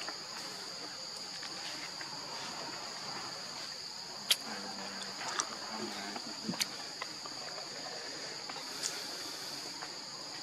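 Steady high-pitched insect chorus, two even tones that run without a break, broken by a few sharp clicks, the loudest about four seconds in.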